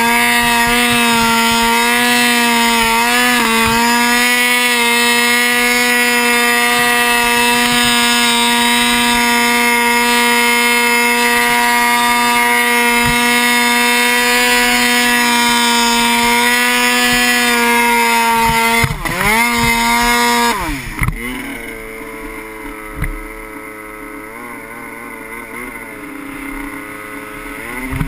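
Turbocharged Arctic Cat M1000 snowmobile's two-stroke twin engine held at steady high revs under load while climbing a powder slope. After nearly twenty seconds the revs drop sharply and swing up and down as the sled turns out, then it runs quieter at lower, wavering throttle.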